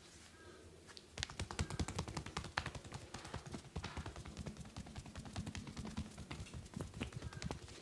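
Massage percussion: a fast, continuous run of hand taps, many quick strikes a second, starting about a second in.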